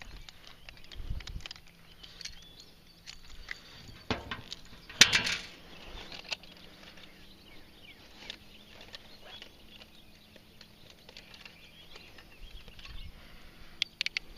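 Clicks and knocks of fishing tackle being handled on a boat deck, with one loud clatter about five seconds in and a quick run of metallic clicks from fishing pliers near the end.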